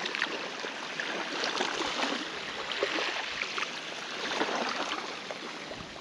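Shallow water washing and lapping, a steady fizzing wash with many small irregular splashes and trickles.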